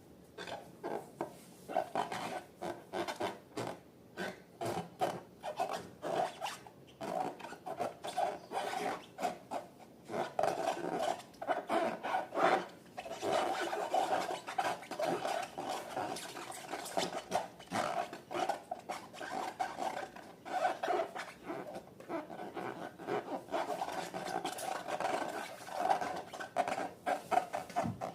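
Slime being mixed and worked, a dense irregular run of small sticky clicks.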